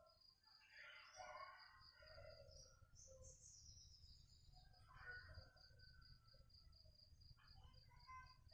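Near silence with faint ambience: an insect chirping in an even, steady pulse and a few faint bird calls.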